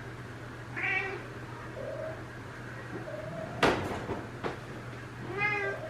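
Female Ragdoll cat in heat meowing: two drawn-out calls, one about a second in and one near the end, with softer short calls between them. A sharp knock in the middle is the loudest single sound.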